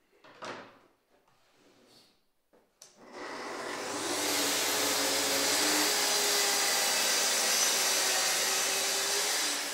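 Festool plunge-cut track saw spinning up about three seconds in and running steadily as it cuts a wooden panel along its guide rail, with a dust extractor drawing through the hose attached to the saw. The sound tails off at the very end.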